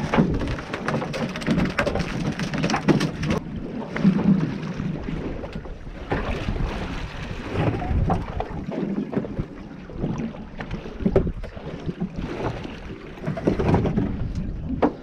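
Wind buffeting the microphone over water sloshing against a boat's hull, with scattered knocks and clatter of gear on the deck.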